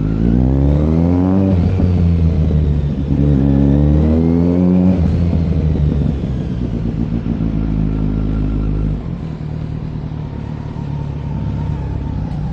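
Kawasaki Z900 inline-four engine accelerating away through the gears. The pitch rises, drops at a shift about 1.5 s in, climbs again to about 5 s and drops at a second shift, then settles quieter from about 9 s. The exhaust note is open, heard with the exhaust gasket freshly fixed.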